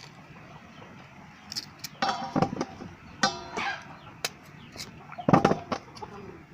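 Chickens clucking in short bursts: several calls about two seconds in, again around three seconds, and a louder one near five seconds, with a few sharp clicks between them.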